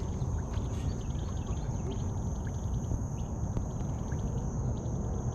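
Insects calling steadily in one thin, high, continuous tone over a steady low rumble of outdoor noise.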